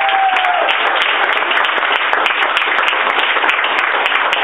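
Audience applauding steadily. A single held tone sounds over the clapping and stops about half a second in.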